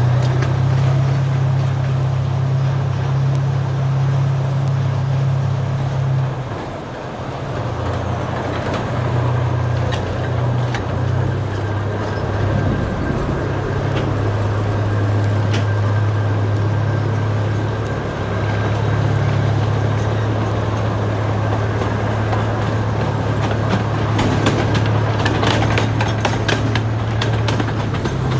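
Miniature passenger train running, heard from one of its open cars: a steady low hum from the locomotive that shifts in pitch and dips briefly after about six seconds, over the rolling noise of the wheels on the track, with a run of clicks near the end.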